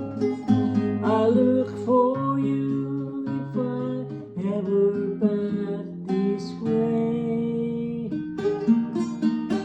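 Acoustic guitar playing an instrumental passage of a slow folk song, picking and strumming a chord progression.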